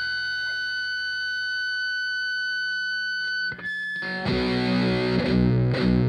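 Hardcore punk recording: a single high tone rings steadily, cuts out about three and a half seconds in, and then a loud distorted electric guitar riff starts.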